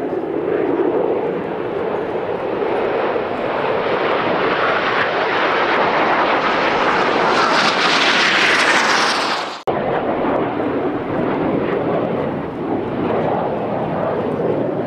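Aermacchi MB-339 jet trainers' Rolls-Royce Viper turbojets making loud, continuous jet noise, growing louder and hissier as a jet passes. It breaks off abruptly about ten seconds in, then resumes as steady jet noise of a jet climbing overhead.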